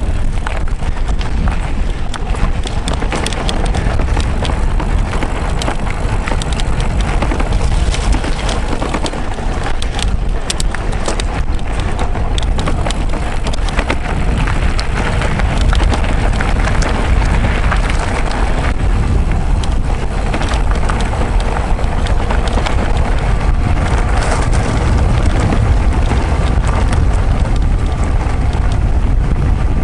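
Mountain bike riding over a rough track: a steady wind rush on the microphone with constant rattling and clicking from the bike and tyres.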